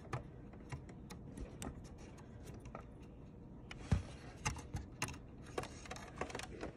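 Scattered light clicks and taps of hands working inside an opened DVD-VCR's disc mechanism, with one louder knock about four seconds in.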